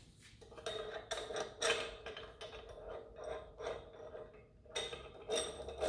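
Steel pinion-bearing puller tool being threaded by hand onto the drive shaft inside a Volvo Penta DPS sterndrive lower unit: a series of light, irregular metallic clicks and scrapes as the parts turn against each other.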